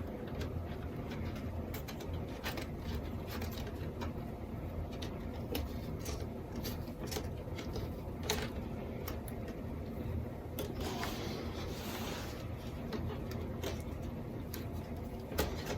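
Scattered light clicks and taps of small parts being handled as a panel-mount voltmeter is fitted into a toolbox's switch panel, over a low steady hum.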